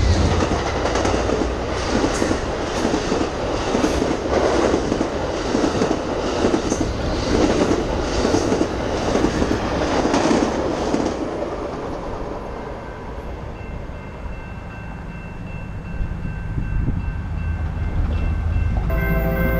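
Amtrak passenger train passing close by at speed: diesel locomotive, then the cars rushing past with a clickety-clack of wheels over rail joints. About eleven seconds in, the last car goes by and the sound fades to a quieter rumble of the departing train.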